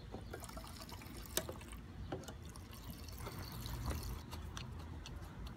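Fuel being poured into a gas RC car's fuel tank, with small plastic clicks and taps and one sharp click about a second and a half in.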